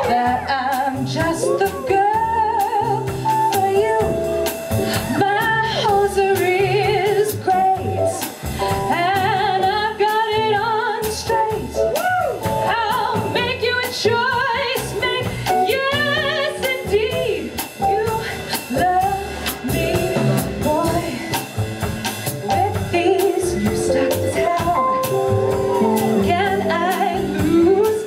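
Live jazz combo, with upright double bass and drum kit, playing a swing number, a wavering melody line over the steady bass and drums.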